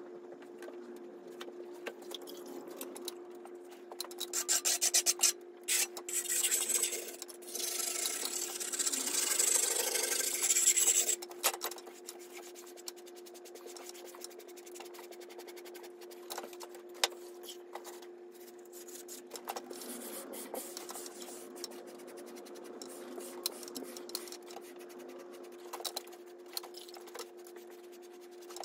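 Sponge and steel trowel rubbing and scraping over a fresh plaster ceiling patch. The strokes are loudest for several seconds near the start, then go on quieter with light clicks, over a steady hum.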